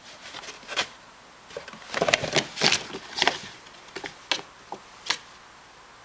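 Bengal kitten pawing and wrestling with a cardboard drinks box: irregular scratching, rustling and light knocking on the cardboard, busiest about two to three and a half seconds in, with a few last scrapes before it stops after about five seconds.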